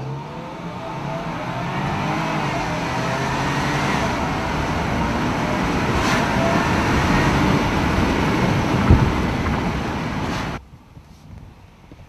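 Car engine and road noise heard from inside the cabin while driving, the engine note rising and falling as it builds over the first few seconds. There is a single knock about nine seconds in, and the sound cuts off abruptly shortly after.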